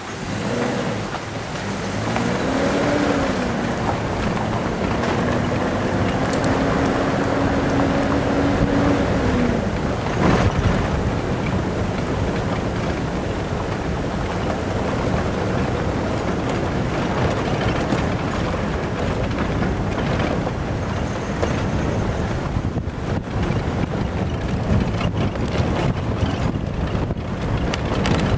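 Wind buffeting the microphone while moving along a gravel road, over a steady rumble from the loose gravel surface. A held tone rises and then stays level for several seconds in the first third, and a sharp knock comes about ten seconds in.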